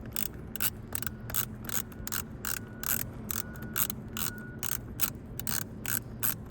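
Hand ratchet wrench clicking in quick, regular strokes, about three or four clicks a second, as a fastener is worked loose during removal of a car's steering wheel.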